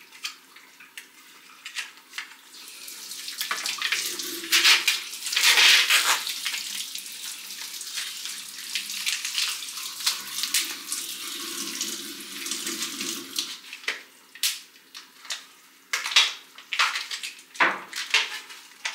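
Water running from a tap into a sink. It starts about three or four seconds in and stops about fourteen seconds in, followed by a few short knocks and clatters near the end.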